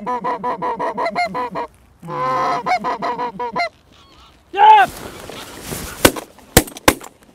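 A flock of barnacle geese calling overhead in rapid, yapping honks, broken by a short pause and stopping after a few seconds. A shout, then three shotgun shots in quick succession near the end.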